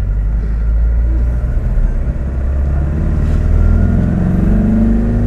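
Porsche 356's air-cooled flat-four engine pulling under acceleration: a steady run for the first couple of seconds, then its pitch climbs evenly as it gains revs.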